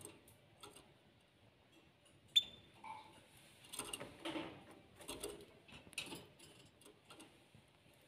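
Canaries pecking at a piece of broccoli and shifting on the wire cage, giving faint, irregular little clicks and taps with one sharper click a couple of seconds in.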